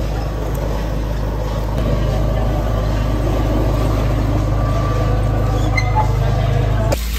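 A loud, steady low rumble like a running engine, with faint clinks over it, cutting off abruptly near the end.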